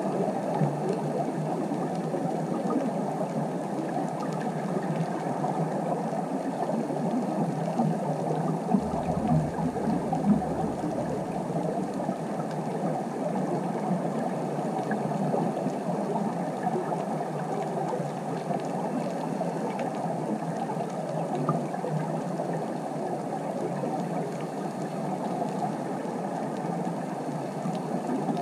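Steady underwater ambient noise, an even rushing hiss picked up by an underwater camera on the seabed. A brief low rumble comes about nine seconds in.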